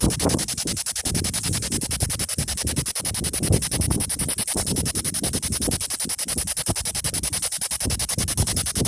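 A P-SB7 spirit box sweeping through radio stations, giving a rapid, even chopping of radio static at about ten pulses a second.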